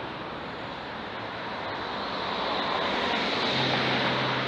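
Road traffic: a vehicle drives past, its tyre and engine noise swelling to a peak about three to four seconds in and then easing off, with a low engine hum joining near the end.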